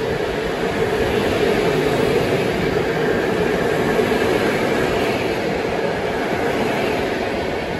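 PKP Intercity passenger coaches rolling past a platform: a steady rumble of wheels on rail with a constant hum underneath.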